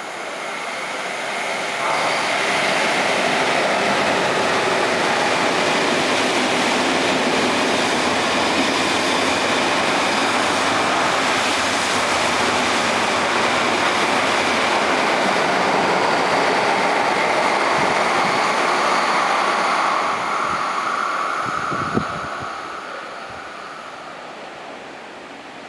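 KTT double-deck through train running non-stop through the station at speed: a steady rush of wheels on rails and carriages going by. It builds about two seconds in, holds, then dies away over the last few seconds, with one sharp click near the end.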